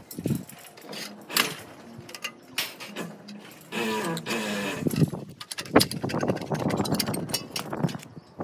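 Work noise from fitting an aluminium rain gutter: scattered knocks and clicks of metal parts and tools being handled. About four seconds in there is a short, steady mechanical whir, followed by a longer rough scraping noise.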